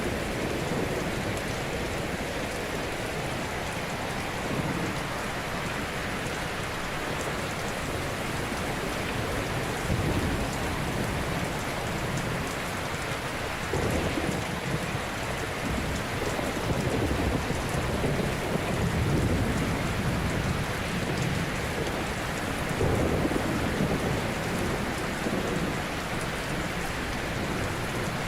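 Ocean waves breaking on a shore: a continuous hiss of surf with low rumbling swells every few seconds as waves crash and wash in.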